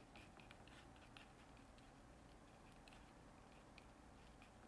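Faint scattered clicks and scrapes of a metal palette knife working oil paint on a glass palette, most of them in the first second, over a quiet room hum.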